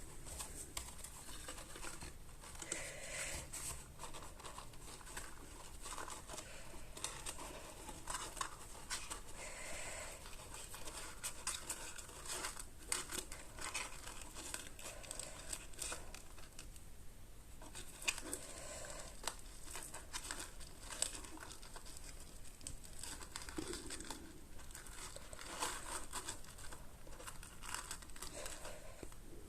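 Cardstock box and ribbon being handled at close range: soft, irregular paper crinkling and rustling with scattered light clicks and taps.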